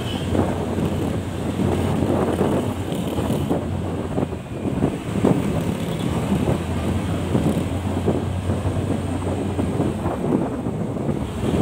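Motorcycle riding in city traffic: the engine's steady hum under rough wind buffeting on the microphone.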